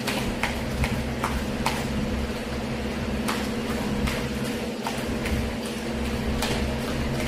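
Speed jump rope slapping a gym floor in quick, slightly uneven clicks, two to three a second, as a skipper runs through alternating steps. A steady low hum runs underneath.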